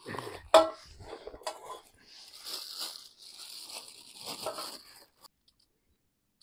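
A few sharp knife clicks as vegetables are cut, then a clear plastic packet crinkling and tearing for a second or two.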